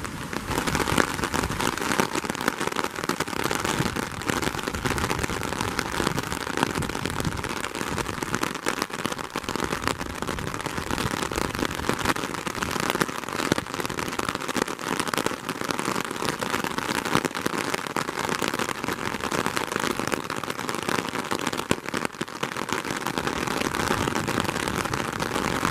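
Thunderstorm rain falling on an umbrella held overhead: a steady hiss of rain with many small, sharp drop impacts close by.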